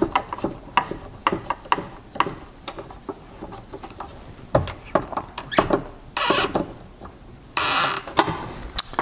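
Screwdriver tightening bolts into the plastic control valve of an Aquamaster water softener: irregular clicks and creaks as the bolts turn. Two short rasping noises come about six and seven and a half seconds in.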